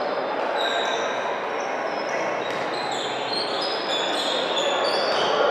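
Crowd chatter and court noise during an indoor volleyball match in a large sports hall, with many short high squeaks scattered through it.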